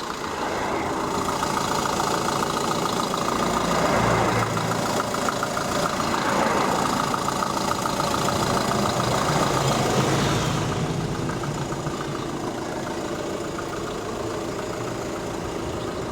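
Car engine running with a knock from the crankshaft damper pulley, a sign of a worn damper after 135,000 km; engine speed picks up and eases back in the middle.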